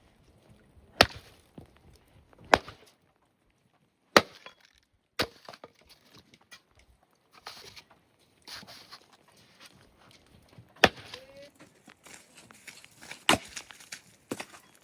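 A series of sharp knocks or blows, about six of them at irregular intervals, with fainter scraping and crackling in between.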